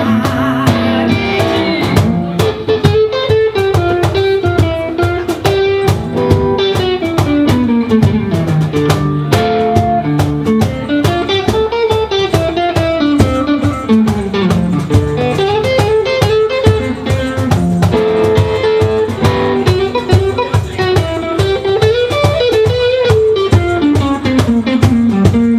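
Live band playing an instrumental break: a guitar plays a winding single-note solo over steady cajon hits.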